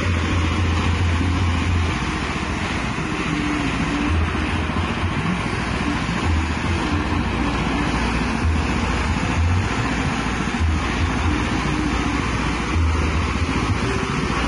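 Small engine running steadily, driving a livestock-feed mixer, with an uneven low hum under a constant mechanical noise.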